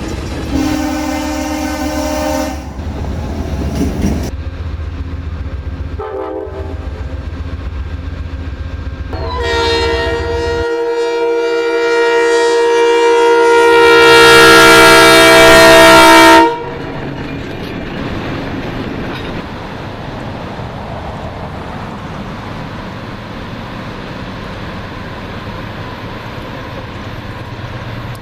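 Freight locomotive air horn sounding the grade-crossing pattern: two long blasts, one short, then a long final blast that is the loudest, growing louder as the train nears. Then the steady rumble and clatter of the freight train rolling past.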